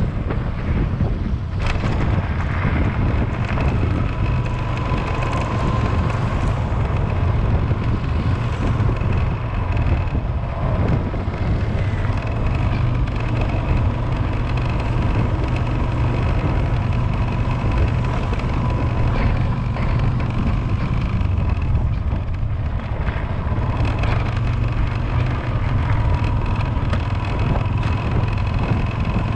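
Steady low wind rumble on the microphone of a vehicle moving along a road, over a faint, even whine from the vehicle.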